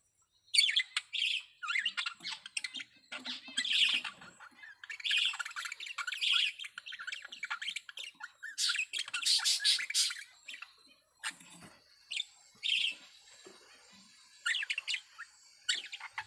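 Budgerigars chattering and squawking in quick, irregular bursts of short calls, as a male in breeding condition does.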